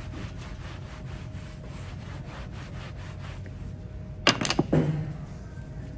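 Cloth rag rubbed by hand in quick back-and-forth strokes over a black leather shoe during a shoeshine, about four or five strokes a second, dying away after about three seconds. A short loud burst follows about four seconds in.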